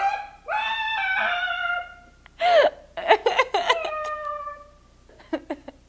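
Woman laughing in two bouts, the second breaking into quick pulses and then trailing off in a long fading note, with a few short sounds near the end.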